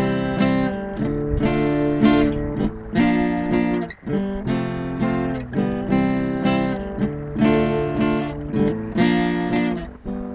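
Acoustic guitar strummed in a steady rhythm, playing chords with no singing.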